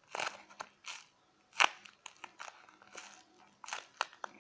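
Homemade taped-paper squishy being squeezed and handled: the paper and tape crinkle in a series of short, irregular crunches, the loudest about a second and a half in.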